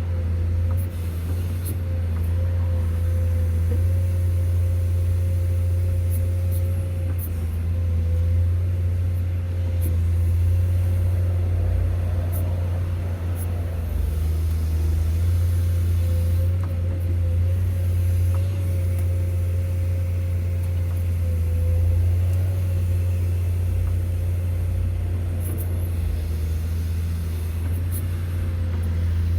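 Excavator's diesel engine running steadily under work, with a low hum and a steady, slightly wavering whine above it.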